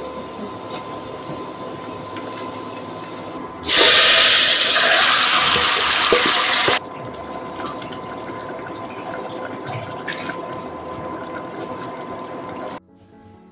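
Water running from a tap, gushing much louder for about three seconds near the middle, then shut off abruptly near the end.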